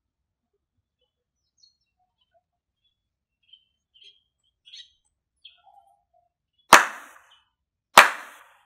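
Two slow, sharp ceremonial hand claps (kashiwade) by a Shinto priest, a little over a second apart, each with a brief ring-out. Faint bird chirps come before them.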